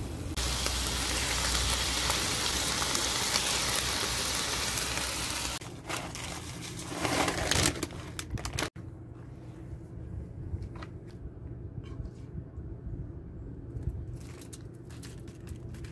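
Ground beef sizzling steadily in a cast iron skillet. About five seconds in it gives way to light crinkling, crackling and scraping of tortilla chips and aluminium foil as the chips are spread and meat is spooned onto them, over a low steady hum.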